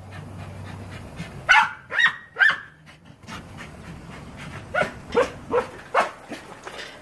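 Australian shepherd barking: three loud, sharp barks in quick succession about a second and a half in, then a run of quieter, shorter barks near the end.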